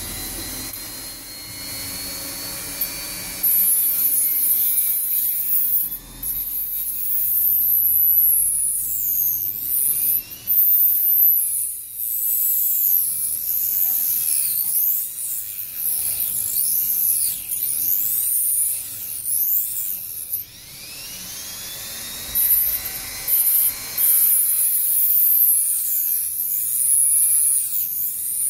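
Dremel rotary tool cutting through a metal ring. It runs as a high whine that dips and rises in pitch as the wheel bites into the metal, with a few short breaks.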